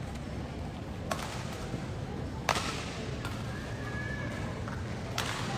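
Badminton rackets striking the shuttlecock in a rally: four sharp smacks, the loudest about halfway through, with a brief squeak of a shoe on the court between the last two, over the steady murmur of a hall crowd.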